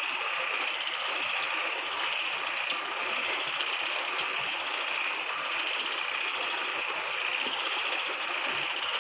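Steady, continuous chorus of forest insects buzzing, a high pulsing drone that holds level throughout.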